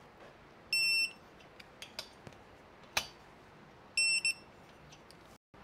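Digital torque wrench beeping as nuts are tightened: one short high beep about a second in and a second, broken beep about four seconds in, its signal that the set torque has been reached. A few sharp tool clicks fall between the beeps.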